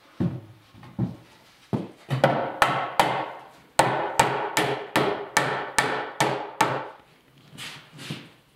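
Knocking on wooden boards: a few spaced knocks, then a steady run of sharp knocks about two and a half a second, ending with two softer ones.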